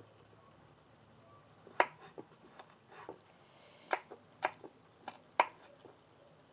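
Kitchen knife cutting radishes on a wooden cutting board: about ten sharp, irregular taps of the blade striking the board, starting nearly two seconds in.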